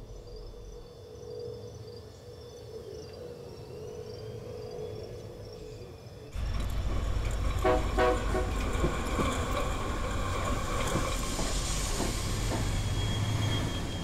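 Faint insect chirping at first. About six seconds in it cuts suddenly to the loud, steady rumble of a diesel freight locomotive rolling slowly through a rail yard, with a few short horn toots soon after.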